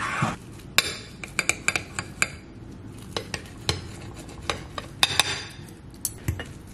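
Metal knife and fork clinking and scraping against a plate while cutting through a stack of pancakes: a string of sharp clicks in irregular clusters with short pauses between them.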